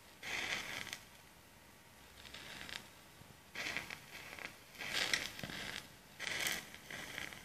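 A pile of wooden matchsticks burning, with match heads catching and flaring in about five short hissing bursts, each under a second long, between quieter gaps.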